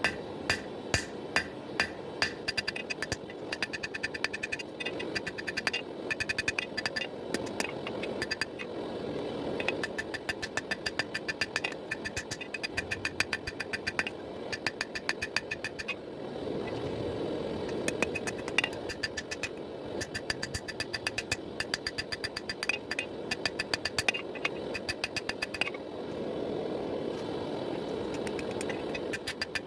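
Rapid, evenly spaced hammer blows on hot pattern-welded steel over an anvil, several strikes a second, each with a short metallic ring, while forging out a knife billet. Beneath them runs a steady rushing noise that swells twice.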